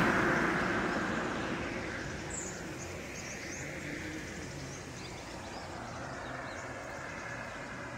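A road vehicle going by and fading away over the first two or three seconds. After that comes a steady open-air background with a few faint bird chirps.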